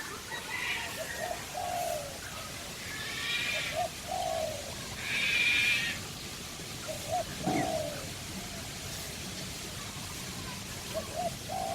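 A dove or pigeon cooing over and over: each phrase is a couple of short notes followed by a longer falling coo, about four phrases in all. Two louder, higher-pitched calls come in around the middle.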